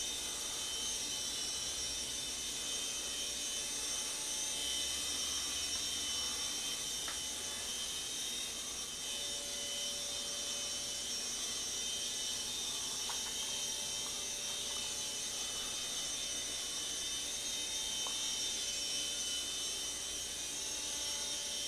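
CCP Star Wars TIE Fighter nano helicopter, a two-channel coaxial, in flight: its tiny motors and contra-rotating rotors make a steady high-pitched whir.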